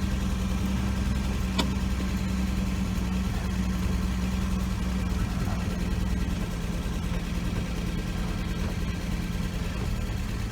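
The 1966 Dodge Dart GT's 225 slant-six engine idling steadily, heard from inside the car. There is one faint click about a second and a half in, and the tone of the idle shifts near the end.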